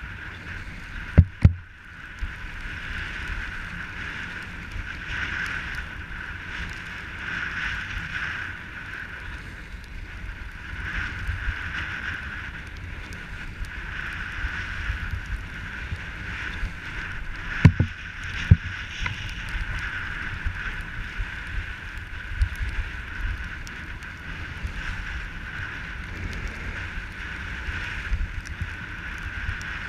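Skis sliding downhill over snow, a steady scraping hiss, with wind buffeting the microphone. Two pairs of sharp knocks stand out, about a second in and again around 18 seconds in.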